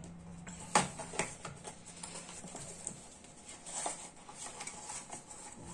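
Small cardboard retail box being opened by hand and a fabric pouch slid out of it: light rustling and scuffing with a few sharp clicks, the loudest about a second in.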